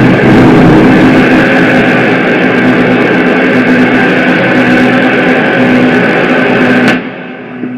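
Harsh noise music: a loud wall of distorted noise over a steady droning tone, cutting off suddenly about seven seconds in and leaving a quieter drone.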